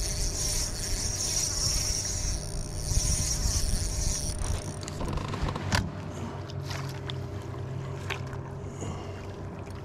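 Water splashing and sloshing against a kayak, with handling knocks and rumble, as a hooked bass is brought alongside and netted. A high, steady hiss runs through the first half and stops about five seconds in.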